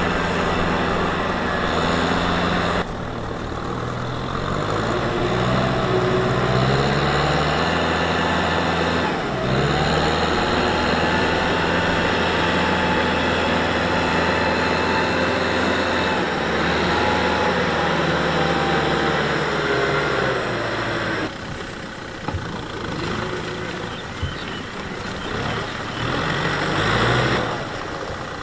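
Kubota M6040 SU tractor's four-cylinder diesel engine working under load while harrowing, its pitch rising and falling as the revs change. The sound jumps abruptly a few times, and it is quieter from about three-quarters of the way through.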